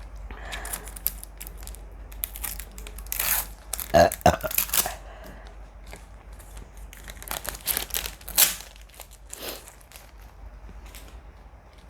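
Plastic 2-litre soda bottle crinkling and crackling as it is gripped, in irregular bunches of sharp crackles, loudest about four seconds in.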